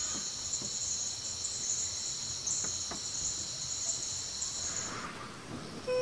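Insect chorus in rainforest: a steady, high, shrill trilling that stops about five seconds in.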